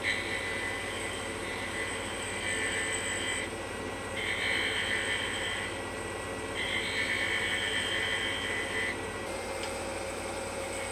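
Wood lathe running with a steady hum while a turning tool cuts a thin mahogany finial in three passes, each a high-pitched cutting sound lasting one to three seconds.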